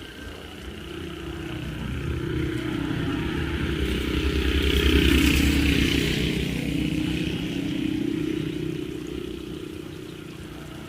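A motor vehicle drives past, its engine and tyre noise swelling to a peak about five seconds in and then fading away.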